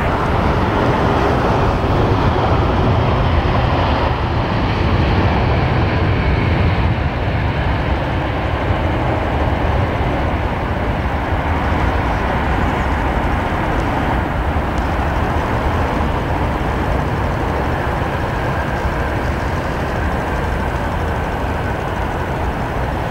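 Jet engine noise from a landed Airbus A380, its four Rolls-Royce Trent 900 engines running down as it rolls along the runway. The higher part of the noise fades over the first several seconds, leaving a steady low rumble.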